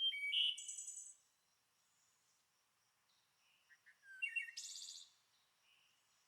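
A songbird singing two short phrases about four seconds apart, each a few clear notes running into a rapid high trill.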